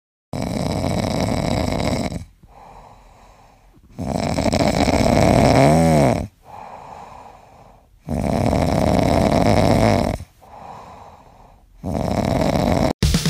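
Pomeranian puppy snoring in its sleep: four loud snores about four seconds apart, each followed by a quieter breath out. The second snore ends in a short squeaky whistle.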